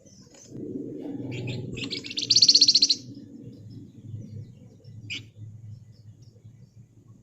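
Flamboyan (Javan fulvetta) songbird singing: a few short chirps, then a fast, tightly packed rattling trill lasting about a second, the loudest part, and one sharp chirp a couple of seconds later.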